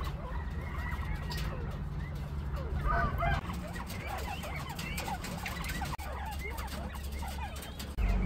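A covey of northern bobwhite quail making many short, soft chirps and twitters, busiest about three seconds in, over a steady low rumble.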